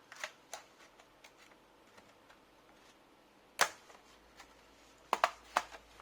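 Sharp plastic clicks and snaps from an HP Omen laptop's bottom cover as it is pried off and its clips let go. There are two light ticks at the start, one loud snap about three and a half seconds in, and a quick run of three or four snaps near the end.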